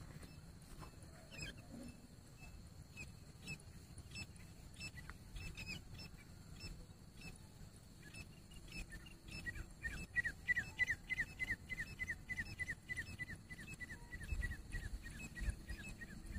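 Grey francolin calling: scattered short chirps, then from about halfway a fast run of short, slightly falling notes, about five a second, that slows and fades toward the end. A steady high drone and a low rumble sit underneath.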